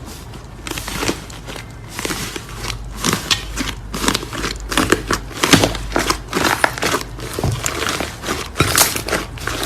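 Slime being squeezed and kneaded by hand, giving many quick, irregular crackles and pops that come thicker toward the end.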